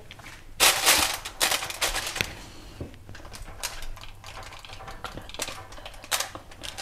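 Crinkling of aluminium foil and a plastic bag as a marinated turkey leg is laid onto a foil-lined baking tray: a dense crackle for about a second and a half near the start, then scattered crackles and clicks as the meat is handled.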